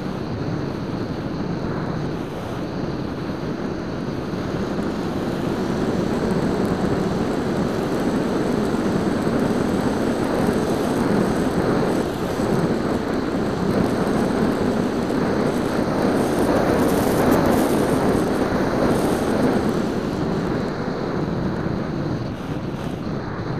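Rushing wind noise and electric-motor propeller noise picked up by the onboard keychain camera's microphone on an EasyStar 2 foam RC plane in flight. It grows louder through the middle and eases near the end.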